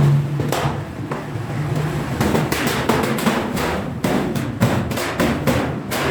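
Hand hammer repeatedly striking sheet steel, in quick runs of about four blows a second.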